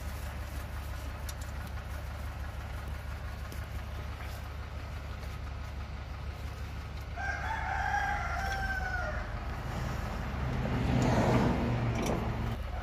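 Steady low background hum. About seven seconds in, one wavering animal call lasts about two seconds, and near the end a louder noise swells and fades.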